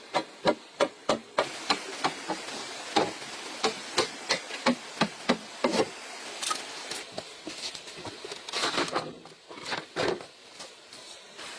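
Repeated sharp strikes on bamboo with a hand tool, a quick run of about three a second, then slower, even blows about one and a half a second. After that come a few scattered knocks and a brief rough scraping noise near the end.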